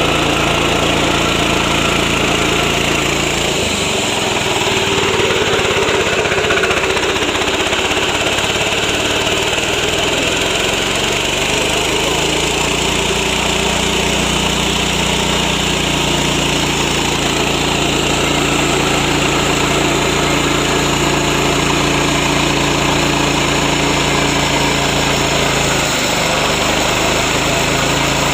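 Yasuka mini rice milling machine running, driven by its MGX 210 single-cylinder petrol engine: a loud, steady engine-and-mill drone. About four seconds in the engine note shifts and wavers, then settles steady again from around twelve seconds.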